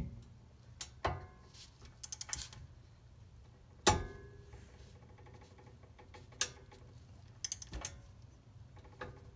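Torque wrench ratcheting on a CV axle spindle nut being torqued to about 180 ft-lbs: scattered sharp metal clicks and short quick runs of ratchet clicks, the loudest single click about four seconds in.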